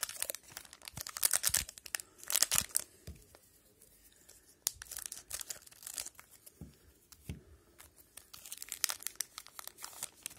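Plastic wrapper of a hockey card pack being torn open and crinkled by hand, in three clusters of ripping and crackling rustle.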